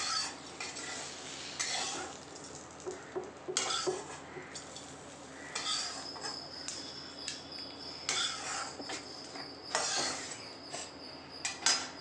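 Spatula scraping and clinking against a steel kadai while fried slices are scooped out, in repeated strokes about every two seconds, with a few sharp clinks near the end.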